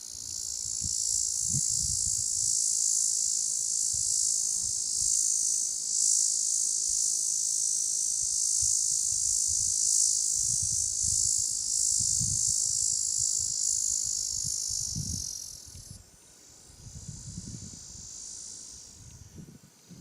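Loud, steady, high-pitched insect chorus that drops sharply about 16 seconds in and carries on more faintly, with soft irregular low thumps underneath.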